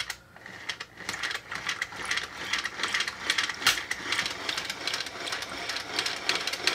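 Sunbeam children's toy blender running with coloured water in its plastic jar, which is pressed down onto the base to work it: a click, then a small motor buzzing with a fast plastic rattle that builds over the first second and keeps going.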